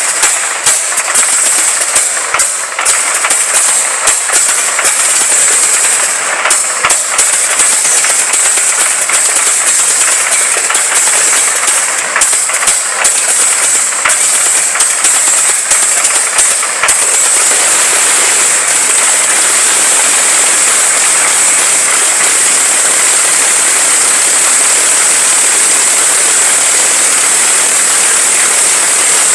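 Rolls-Royce Griffon V12 aero engine of a Mustang race plane running loudly on a ground test, its first firing after replacement. The sound is harsh and noisy, with irregular sharp cracks for about the first seventeen seconds, then settles into a steady, even note.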